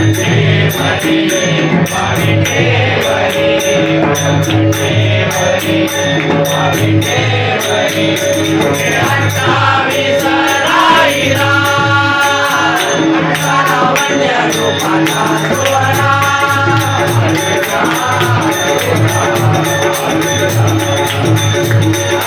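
Marathi devotional bhajan: harmonium with voices singing the abhang, and jingling percussion keeping a steady fast beat.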